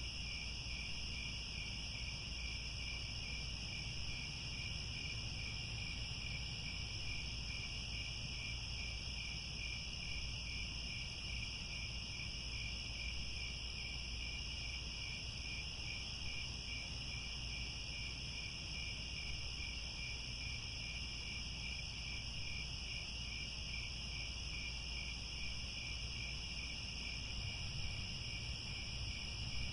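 Chorus of crickets trilling continuously in two steady high-pitched bands, with a faint regular pulse in the lower one. A low steady rumble sits underneath.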